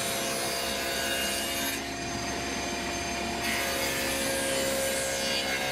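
Table saw running steadily, its blade cutting through a thick red oak board fed along the fence, with the saw's motor tones holding steady under the cutting noise.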